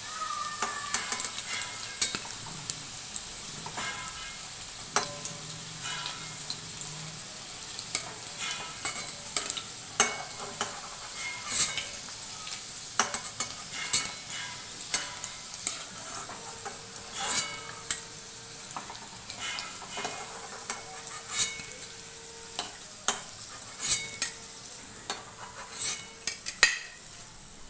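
Green-plantain and shrimp koftas frying in hot oil in a metal kadai, a steady sizzle, with irregular scrapes and taps of a spatula against the pan as the browned koftas are lifted out one by one.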